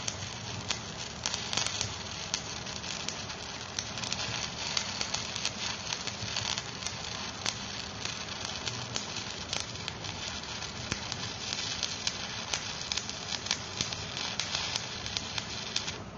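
Electric stick-welding arc crackling and sizzling steadily on steel, then cutting off at the very end as the arc is broken.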